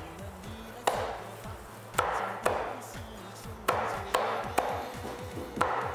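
Cleaver chopping through crispy-skinned roast dog meat on a thick round wooden chopping block: about seven sharp chops at an uneven pace.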